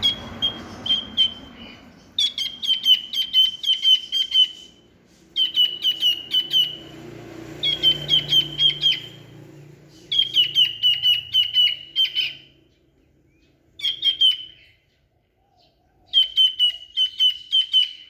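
Cockatiel chirping in repeated bouts of quick, high-pitched notes, a pet cockatiel practising its song. There are about seven bouts, each one to two and a half seconds long, with short pauses between them.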